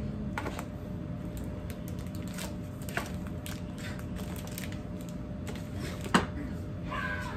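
Scattered light clicks and taps from things being handled on a kitchen counter, with one sharper click about six seconds in, over a steady low hum.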